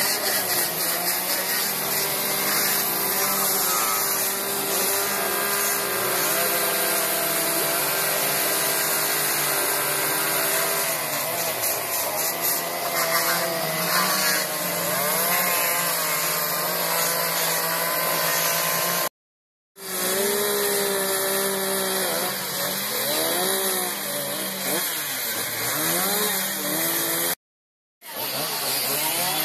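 Several two-stroke chainsaws running at once, their engines revving up and down as they carve into wood. The sound drops out briefly twice in the second half.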